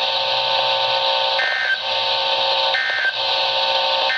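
Three short warbling data bursts of the Emergency Alert System's end-of-message code from a NOAA Weather Radio receiver, evenly spaced about a second and a half apart: the signal that the warning broadcast has ended. A steady buzzing hum runs underneath.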